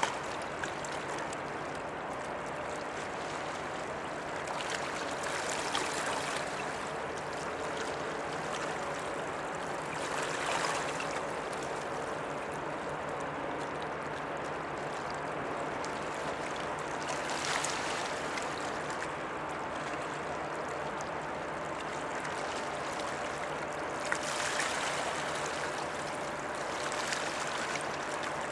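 Water washing and lapping against the riverbank as a steady rushing wash, swelling into louder surges about every six or seven seconds. A faint low steady hum runs underneath.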